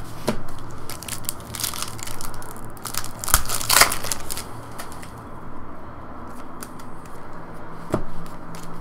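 A foil trading-card pack being torn open and crinkled by hand, an irregular crackling and tearing that is densest and loudest about three to four seconds in.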